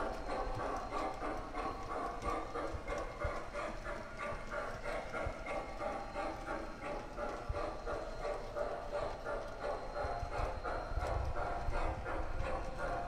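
O gauge model train tanker cars rolling along three-rail track, the wheels making a steady rhythmic clicking clatter over the rail joints with a running rumble.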